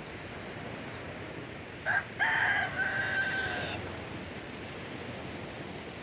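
A rooster crowing once, about two seconds in: a short first note and then a held call lasting about a second and a half. It sounds over a steady wash of surf and wind.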